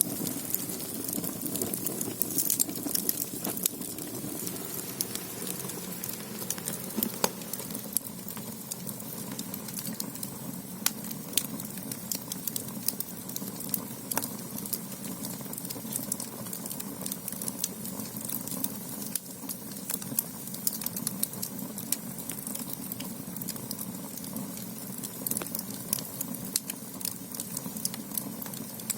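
Firewood burning in the firebox (agungi) of a Korean ondol clay-floored room: a steady low rush of flame with frequent sharp crackles and pops.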